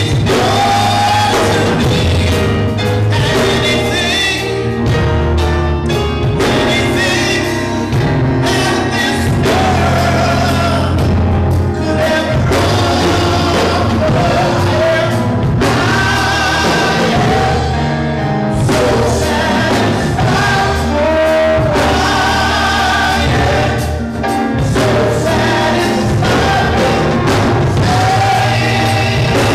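Live gospel praise-and-worship music: a band with drums and bass playing steadily under sustained, soaring lead singing and backing voices.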